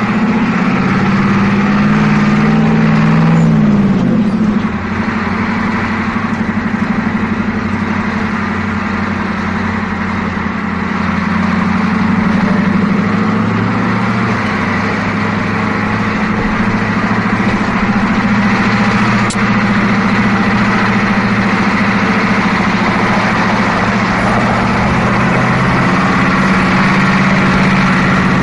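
Inside a bus: the engine drones steadily under a constant haze of running noise. The engine note shifts about four seconds in, and there is a single short click a little past the middle.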